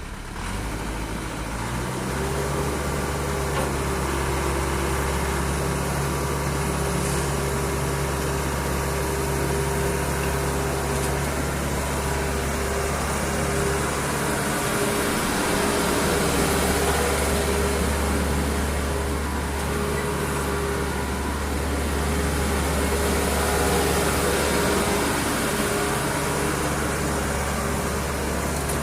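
Doosan DH55-7 midi excavator's diesel engine running steadily, settling into an even note about two seconds in.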